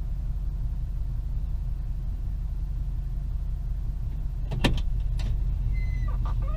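Low, steady rumble of a car engine idling, heard from inside the cabin. A sharp click comes about two-thirds of the way in, followed half a second later by a fainter one.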